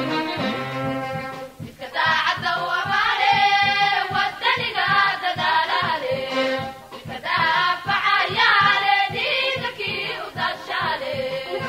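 Music with singing voices over a steady beat; the voices come in about two seconds in.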